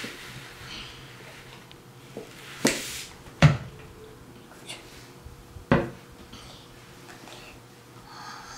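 Plastic paint squeeze bottles knocking on a table as they are picked up and set down: two sharp knocks close together near the middle, the second the loudest, and a third about two seconds later.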